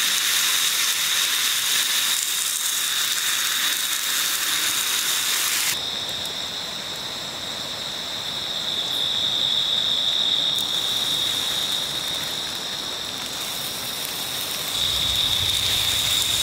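Meat and then sausages frying in a cast iron skillet over campfire embers, a steady hissing sizzle, with a steady high-pitched tone running underneath. The sizzle shifts abruptly about six seconds in and again near the end.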